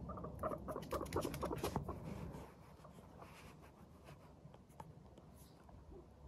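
Guinea pigs chutting: a quick run of short 'pupupu' calls mixed with light pattering and scratching on a rug. It dies down after about two and a half seconds to faint rustling and clicks. This is the sound of contented guinea pigs walking and exploring.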